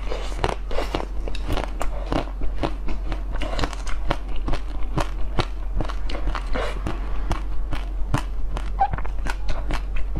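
Close-up biting and chewing of a pink-coated ice cream bar, its hard shell cracking and crunching in many quick, sharp crackles, several a second.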